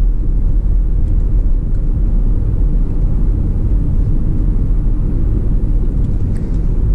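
Hyundai Azera V6 with its rear mufflers removed, cruising at a steady light throttle: a loud, steady low rumble of engine and road noise.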